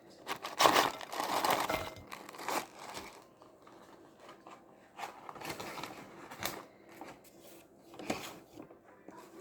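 Paper takeaway food packaging crinkling and rustling as it is handled and opened, loudest in the first two seconds, then in shorter scattered rustles.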